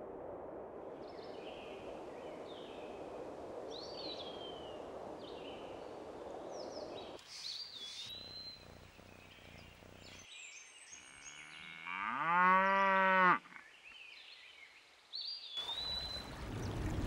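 A cow mooing once about twelve seconds in, a long call that rises, holds and falls, the loudest sound here. Around it are scattered high birdlike chirps over a low steady hiss, and from about fifteen seconds in, water rushing in a stream.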